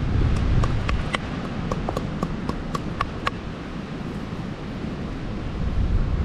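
A claw hammer tapping lightly on a rock nodule held in the hand, knocking off the clay coating: about a dozen quick, sharp taps in the first three seconds, then fewer. Low wind rumble on the microphone underneath.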